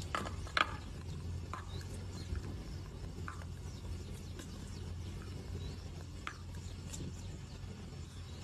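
A few short, sharp clicks and taps, the loudest within the first second, as a raven handles a stone at a glass jar of water, over a steady low hum.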